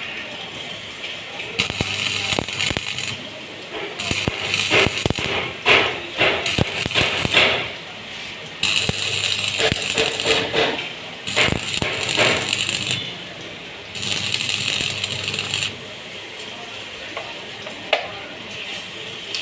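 Several separate bursts of hissing, each about one to two seconds long, with quick metallic clinks and taps among them around the middle and once more near the end.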